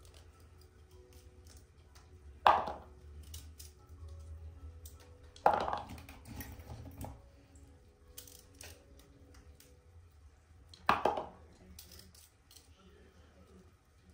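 Brussels sprouts being cleaned and dropped into a stainless-steel colander, giving three sharp metallic clanks with a short ring, about two and a half, five and a half and eleven seconds in. Faint small clicks of the trimming come between them.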